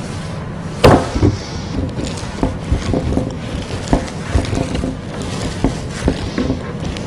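A 9-inch paint roller with a half-inch nap cover rolling clay-based wallpaper paste back and forth over a sheet of wallcovering on a pasting table. There is a sharp thump about a second in, then a string of softer, irregular knocks as the roller and its handle work over the table.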